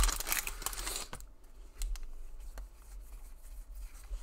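Foil trading-card pack crinkling as it is torn open, then a few light clicks and rustles of the cards being handled.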